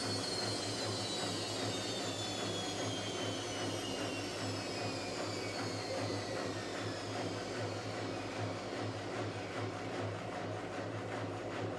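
Whirlpool AWS 71200 front-loading washing machine's drum slowing down in its final spin. The motor whine falls steadily in pitch over a low hum, and the high hiss dies away near the end.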